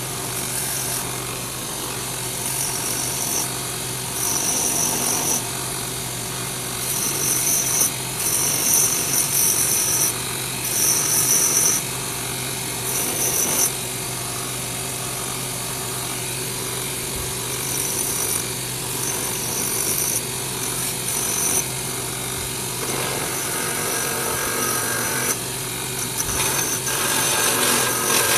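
Belt grinder running with a steady motor hum while a coil-spring steel knife blade is pressed to the abrasive belt in repeated passes, each pass a loud hissing grind of one to two seconds. The passes come in a quick run through the first half, a few more after a pause with only the grinder running, and one more at the end.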